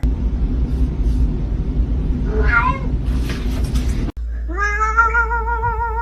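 Domestic cat meowing once briefly over a low rumble, then, after a sudden cut, a cat starting a long, drawn-out wavering yowl.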